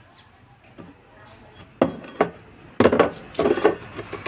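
Hammer knocking on an old metal frying pan against a wooden workbench: two sharp knocks about two seconds in, then a quick flurry of knocks and rattles near the end.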